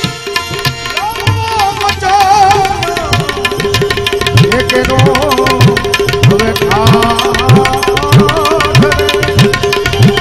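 Instrumental interlude of a Gujarati santvani bhajan. Tabla plays a steady rhythm whose bass strokes glide upward in pitch, about two a second in the second half, over a held drone note and a wavering melody line.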